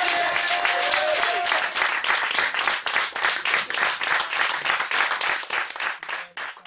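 The last held note of the music dies away about a second and a half in, and an audience claps, thinning out near the end.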